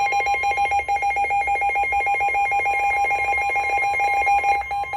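Emergency Alert System two-tone attention signal: two steady tones sounded together, giving a loud, harsh buzzing tone that announces an emergency weather alert about to be read. It changes shortly before the end.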